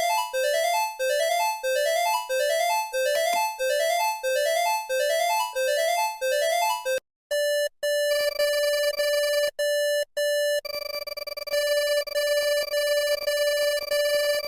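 Synthesized emergency-alert sounds: a short rising run of electronic notes repeated about every 0.7 s, which cuts off about seven seconds in. A steady electronic alert tone follows; it breaks off twice, then holds.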